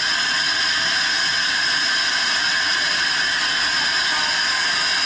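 Steady, loud hiss of air rushing through a hyperbaric diving chamber, even and unbroken.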